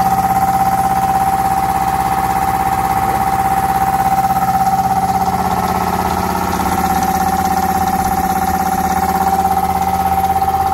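Belt-driven twin-cylinder air compressor pump, powered by a 3-phase 5 hp electric motor on a variable frequency drive, running steadily at raised speed. It has an even rapid pulsing with a steady whine over it.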